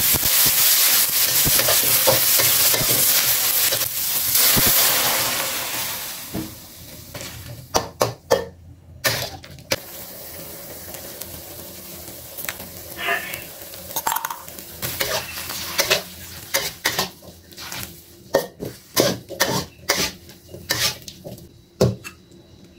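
Broccoli and carrots sizzling loudly in a hot wok, the sizzle dying down after about six seconds. A metal spatula then scrapes and clinks against the wok in short, separate strokes.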